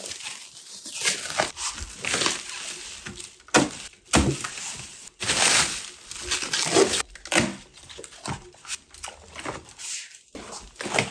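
Packaging being torn open and handled during an unboxing: irregular rustling, crinkling and scraping, with a few sharp knocks.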